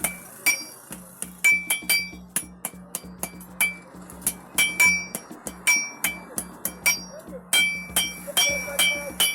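Hand hammer striking hot metal on an anvil during forging: a fast, irregular run of ringing metallic clinks, about three a second.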